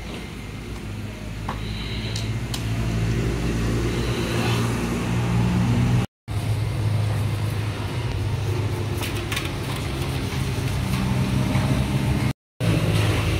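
An engine running steadily at idle, a low hum that grows a little louder over the first few seconds, with a few faint clicks of hand tools on metal.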